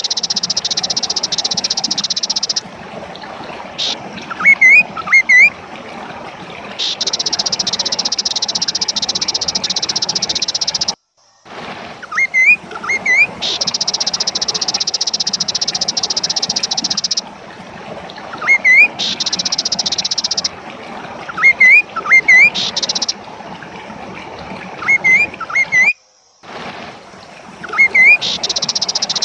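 Kaso-kaso bird singing: sharp, quick upslurred chirps in twos and threes alternate with long stretches of high buzzing a few seconds long. The chirps are the loudest part. The sound cuts out completely for a moment twice, as at a loop join.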